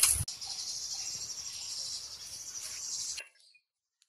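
Steady high-pitched chirring of insects, with a brief low thump at the start; the chirring cuts off suddenly about three seconds in.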